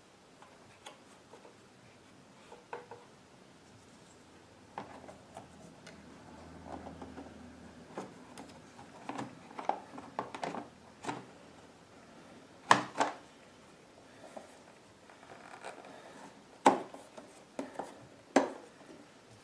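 Scattered clicks, taps and rubbing from handling the air filter and its housing parts as they are fitted back into the generator, with several sharper knocks in the second half.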